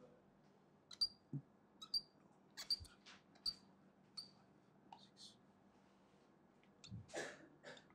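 Marker pen on a whiteboard drawing short tick marks: a run of about ten brief strokes, several with a high squeak, over the first five seconds or so. A short, louder sound follows about seven seconds in.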